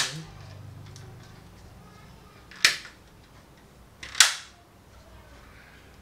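Plastic snap-fit clips of a Chunghop universal AC remote's back cover clicking into the front housing as the two case halves are squeezed together: a light click, then two loud sharp snaps about a second and a half apart.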